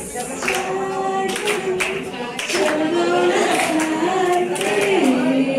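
A woman singing unaccompanied into a microphone, holding long notes that step lower in pitch toward the end, with a few scattered claps.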